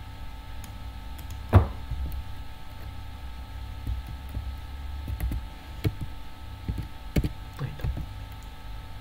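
Scattered computer keyboard and mouse clicks while code is edited, with one louder thump about one and a half seconds in, over a steady low hum.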